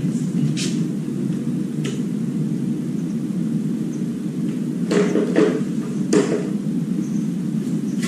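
Scattered light clicks and knocks of hand tools and parts being handled during a repair, over a steady low rumble.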